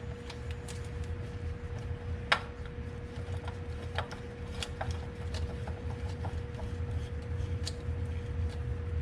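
Scattered light clicks and taps from handling a new spin-on oil filter with gloved, oily hands, over a steady background hum with a faint steady tone.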